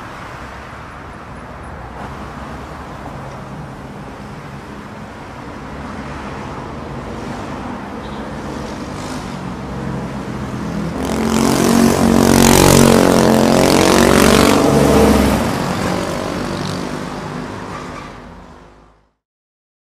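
Street traffic, with a motor vehicle's engine growing louder as it passes about halfway through, then fading away. The sound cuts off shortly before the end.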